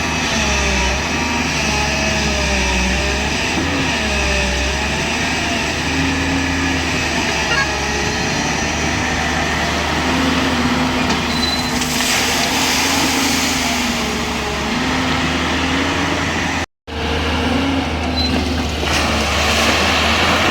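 JCB 205 LC excavator's diesel engine running steadily, its pitch wavering up and down as the hydraulics take load, with a hissing rush partway through and a brief dropout near the end.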